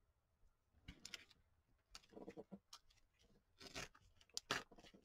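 Faint paper handling: a few short rustles and scrapes as collage paper pieces are pressed flat and slid over one another on a tabletop.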